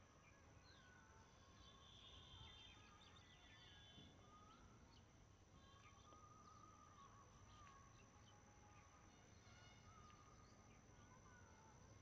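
Near silence: faint, scattered chirps of small birds, over a steady high-pitched whine.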